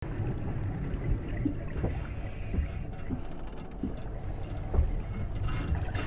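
Steady low rumble of moving water, with a few soft knocks scattered through it.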